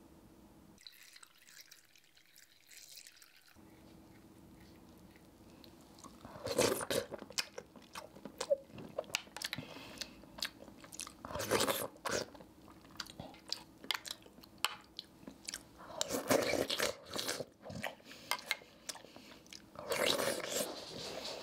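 Close-miked eating sounds: chewing and slurping of chocolate agar jelly cubes in cold milk, with small clicks of a spoon, in loud bursts every few seconds starting about six seconds in. Near the end, milk is slurped straight from the ceramic bowl.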